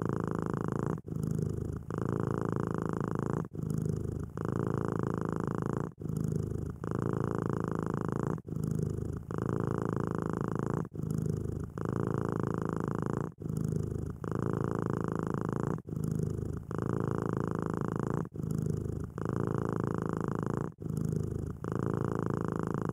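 Burmese cat purring steadily, the purr pausing briefly and changing with each breath in and out about every two and a half seconds.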